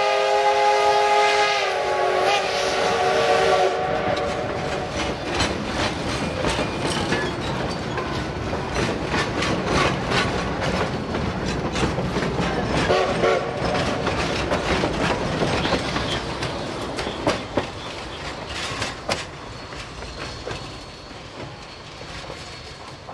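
Steam locomotive whistle sounding one long chord of several tones in the first two seconds, followed by narrow-gauge passenger car wheels clicking over rail joints as the train of K36 484 rolls past and fades away.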